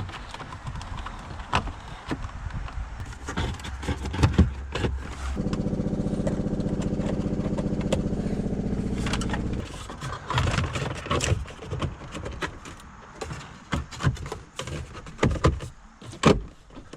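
A small motor, like a cordless power tool, runs steadily at one speed for about four seconds and stops abruptly, with scattered clicks and knocks of parts and tools being handled before and after.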